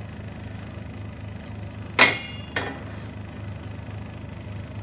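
A flat tawa pan set down onto a gas stove's metal pan support: one loud ringing metallic clank about two seconds in and a smaller clank just after, over a steady low hum.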